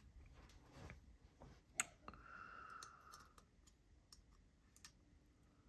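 Faint, sparse clicks of small metal folding-knife parts and tools being handled during reassembly of a crossbar lock, with one sharper click about two seconds in.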